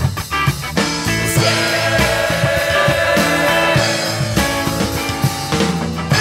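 Rock music with guitar and drums, with a long held note from about one to three and a half seconds in.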